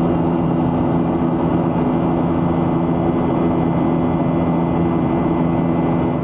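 Boeing 737-800 cabin noise in flight: a steady rush of airflow with the drone of its CFM56 engines and a steady low hum, really loud near the front of the cabin.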